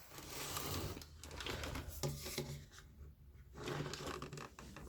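Handling noise from a speaker cabinet being worked on during a teardown: three bouts of rubbing and scraping, each about a second long.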